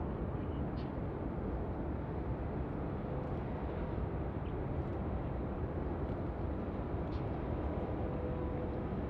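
Jet airliner engines at a distance, a steady low rumble that neither rises nor fades.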